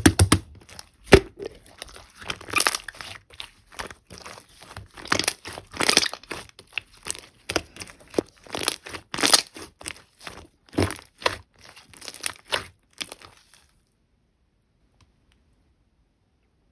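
Slime being squeezed, stretched and pressed by hand, giving a dense run of irregular crackling pops and squelches. It stops abruptly about three-quarters of the way through.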